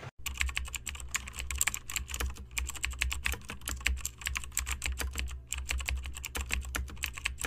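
Computer keyboard typing: rapid, irregular key clicks over a steady low hum.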